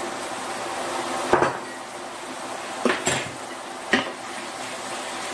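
A cooking utensil knocking and scraping against a frying pan a few times while stirring garlic and mushrooms, over a steady sizzle of them frying in butter.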